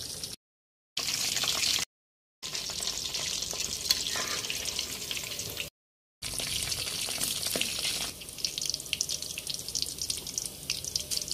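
Hot oil sizzling and bubbling around puffed-rice dough balls as they deep-fry, a steady hiss with light crackling that grows busier near the end. The sound drops out abruptly a few times for a fraction of a second.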